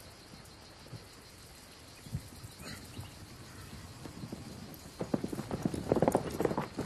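Horses' hooves clip-clopping on hard ground, starting about five seconds in after a quiet stretch, with a horse whinnying near the end.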